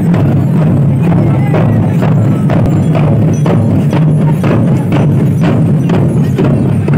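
Large hide-headed barrel drums beaten for a processional dance, a steady beat of about two strokes a second over a constant low rumble.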